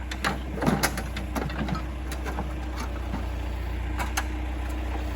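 A heavy machine's engine running steadily at a low hum, with scattered sharp cracks and knocks as the Troy-Bilt Pony riding mower is broken apart; the knocks are thickest in the first second and a half.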